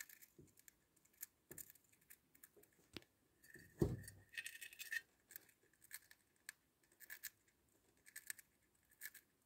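Russian dwarf hamster nibbling dried mealworms: faint, scattered crunching clicks throughout. A dull thump a little under four seconds in is the loudest sound, followed by about a second of denser crackling.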